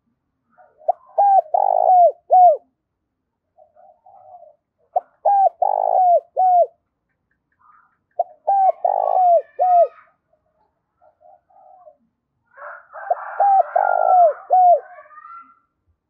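Spotted dove cooing: four phrases about four seconds apart, each a quick run of short, drooping coos with one longer note in the middle. Other birds chirp faintly around the last two phrases.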